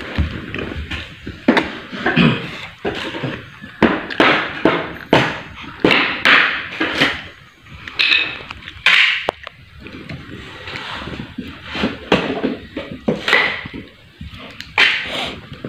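A hammer knocking and prying the nailed wooden slats off a shipping crate: irregular sharp wooden knocks and bangs, roughly one or two a second, with short scraping between them.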